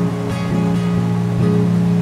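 Background music: acoustic guitar strumming chords that change about every half second, over a steady hiss.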